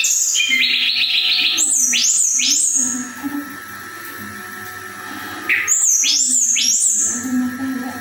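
Caged tledekan songbird singing: a quick stutter of high notes, then loud swooping whistles that sweep up and down, in two bursts, about two seconds in and again about five and a half seconds in.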